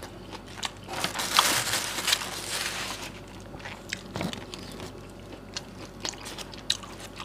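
Close-up sounds of someone eating pecel, a vegetable salad in thick peanut sauce: a rustling, crunching stretch a second or two in, then scattered small wet clicks of chewing.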